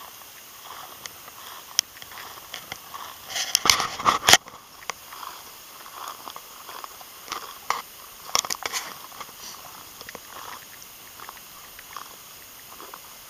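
Footsteps crunching and rustling through dry, tall grass stubble, a steady run of small crackles, with a louder burst of crackling brushes about four seconds in.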